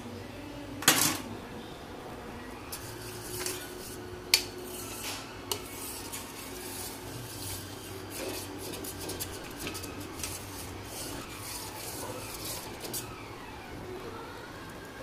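Steel spoon stirring thick oat porridge in a stainless steel pot, scraping and clinking against the pot's sides and bottom. A sharp clank about a second in is the loudest, another comes at about four seconds, and lighter scrapes follow one after another.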